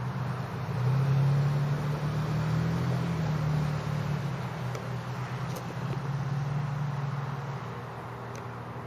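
Single-engine light propeller plane flying low overhead, its engine and propeller giving a steady drone that swells about a second in and eases off near the end.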